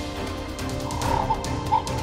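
Background music, with short bright notes coming in about a second in.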